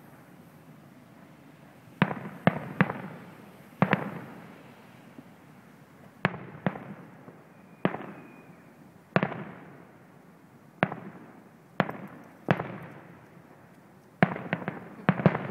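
Aerial firework shells bursting at a distance: single sharp bangs, each followed by a rolling echo that dies away, coming every second or two, then a quick run of several bangs near the end.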